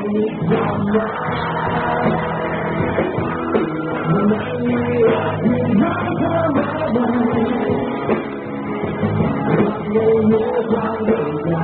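A rock band playing live, with electric and acoustic-electric guitars over drums.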